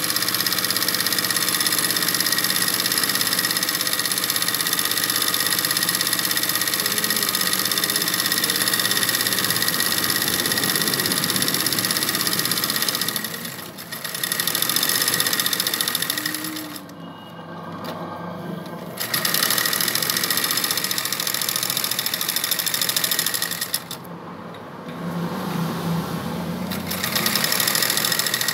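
An ordinary household sewing machine, about 18 years old, running steadily as it stitches free-motion embroidery on cloth stretched in a hoop. In the second half it stops several times for one to three seconds, then starts stitching again.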